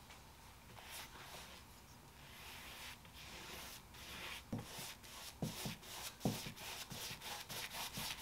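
Paintbrush bristles stroking across a wooden cabinet top, brushing on a thick coat of polyacrylic topcoat. The strokes come slowly at first, then quicken to about four a second near the end, with a few soft knocks along the way.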